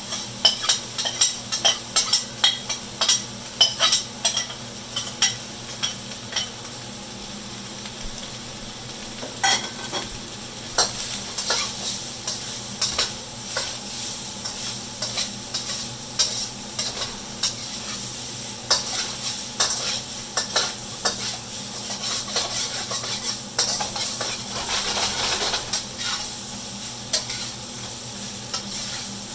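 Fried rice frying in hot oil, sizzling steadily, while a utensil stirs and scrapes it in the pan, mixing the cooked chicken and vegetables back into the rice. Quick, dense clicks and scrapes for the first several seconds, then steadier sizzling with lighter, scattered scrapes.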